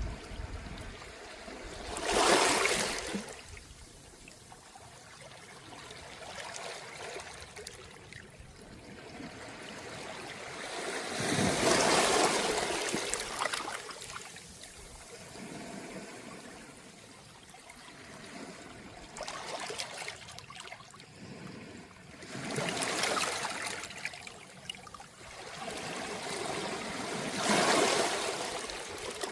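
Small, calm sea waves washing up a beach of smooth round pebbles, with water trickling back through the stones. Four waves swell and fade over the stretch.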